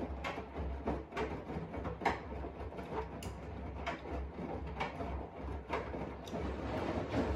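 Washing machine running, with a steady low hum under irregular knocks and clacks about twice a second.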